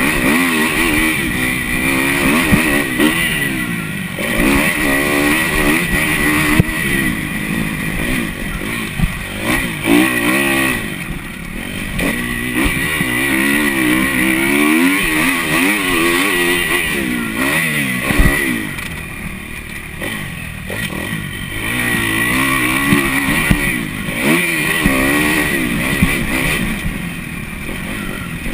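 Kawasaki KX250F's single-cylinder four-stroke engine, heard from on board, revving up and dropping back over and over as the throttle is worked through the laps, with a quieter stretch about two-thirds of the way through.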